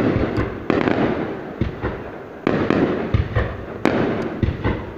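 Fireworks display: aerial shells going off one after another, each a sudden bang followed by a rumbling, fading tail, several in a few seconds.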